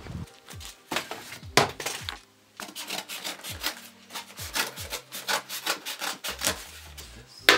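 Scissors cutting through corrugated cardboard in a run of short, irregular snips, with the sheet scraping and rustling as it is handled.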